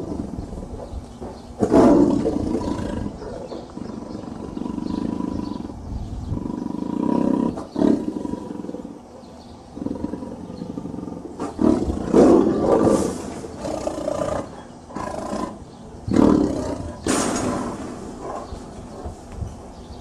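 Tiger roaring in a series of calls, with the loudest ones starting right at the beginning, about two seconds in, around twelve seconds and again around sixteen to seventeen seconds, and lower rumbling calls in between.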